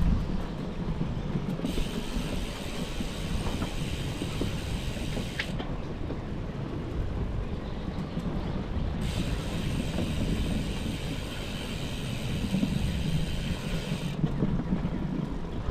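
A bicycle riding on a gravel trail: a steady rumble of tyres and bike rattle mixed with wind blowing across the microphone. A higher hiss switches on and off abruptly twice.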